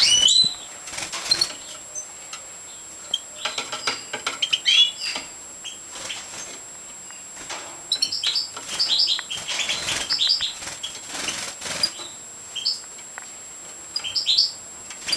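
Goldfinches of the large major subspecies twittering in short bursts of high chirps, with wing flutters as they flit between perches; the busiest chirping comes in the second half.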